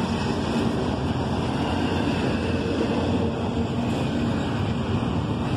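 Double-stack intermodal well cars of a CSX freight train rolling past: a steady rumble of steel wheels on the rails, with a faint steady hum underneath.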